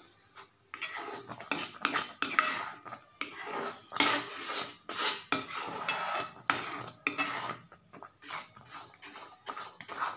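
Metal slotted spoon stirring and scraping semolina cooking in milk against a pan, in quick, irregular strokes that start about a second in. The semolina is thickening in the milk on low heat.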